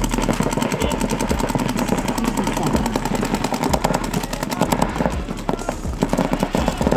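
Paintball markers firing in rapid strings of shots, many a second, during a game.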